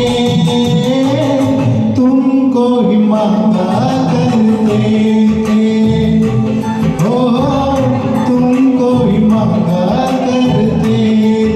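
A singer's voice sings a Hindi film song over a karaoke backing track.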